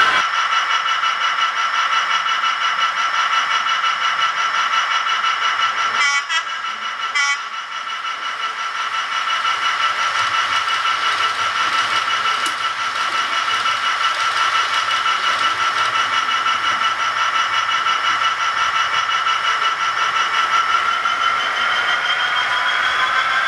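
Sound decoder in an HO-scale model locomotive playing a steady humming locomotive running sound through its small speaker, with a short run of clicks about six to seven seconds in. Near the end the pitch starts to rise as the locomotive begins to move off.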